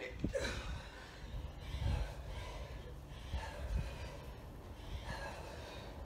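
Two people breathing hard, with short forceful exhales about once a second in time with two-handed kettlebell swings, and a few low thuds.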